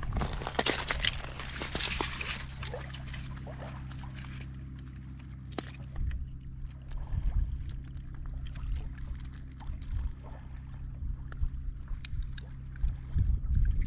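Boat motor running steadily at a constant speed, with a rushing noise over it in the first few seconds and a few light knocks.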